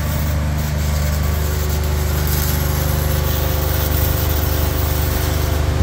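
Arc welding on a steel pipe: a welding machine runs with a steady, even hum while the arc adds a crackling hiss over it.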